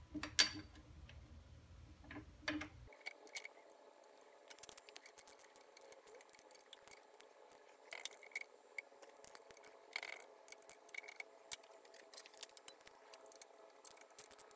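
Small metal clicks and clinks, scattered and irregular, as the threaded depth stop rod and its nuts are fitted and adjusted on an Atlas 73 drill press head.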